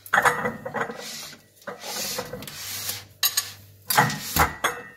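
Dishes being slid across and set down on a cupboard shelf: scraping and rubbing with several sharp clinks, the loudest about four seconds in.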